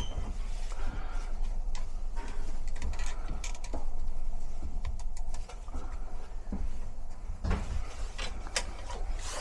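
Gloved hands working wires onto a furnace fan relay control board: rustling and scattered small clicks and taps as terminals are handled, over a steady low rumble.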